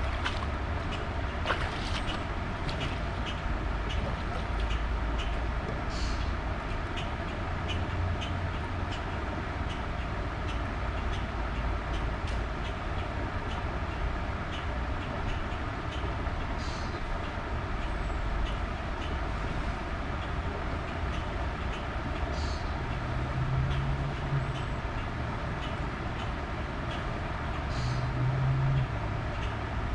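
Wading through a shallow creek: a steady low rumble of moving water and wind on the microphone, with faint quick ticking throughout and a brief low hum twice near the end.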